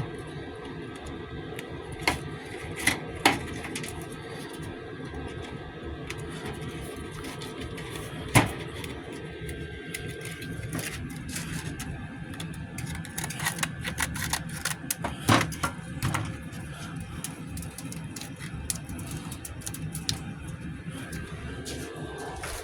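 Scattered clicks and sharp knocks of hand tools being handled and set down, over a steady background hum; the loudest knock comes about eight seconds in, with a run of lighter clicks a little past the middle.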